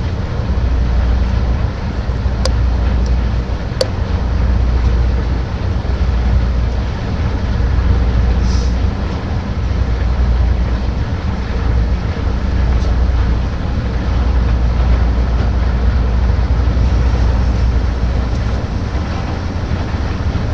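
Heavy machinery running steadily: a loud low rumble with a deep drone that swells and fades every second or two. Two sharp clicks come a few seconds in.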